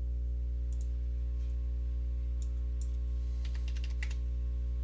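Computer keyboard keys tapped a few at a time, with a quick run of taps about three and a half seconds in, over a steady low electrical hum that is the loudest sound throughout.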